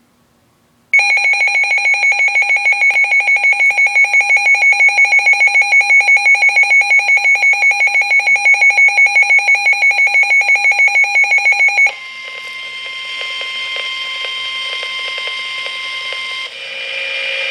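Midland WR-300 weather radio sounding its alert: a loud, rapidly pulsing electronic alarm tone of about five pulses a second. About twelve seconds in it drops to a quieter steady tone near 1 kHz, the weather radio warning tone that marks a warning such as this tornado warning, and the tone pattern changes again near the end.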